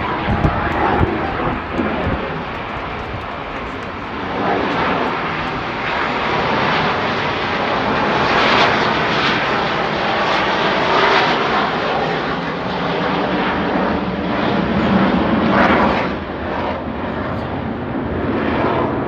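Airplane engine noise from aircraft flying past, a loud roar that swells and fades, loudest about halfway through and again shortly before it drops away near the end.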